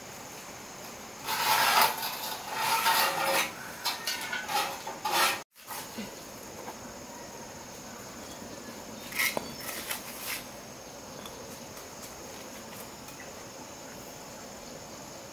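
Scraping and rubbing of cement mortar being worked with a hand tool, in two spells: a longer one of about four seconds, then a shorter one near the middle. Crickets chirp steadily throughout.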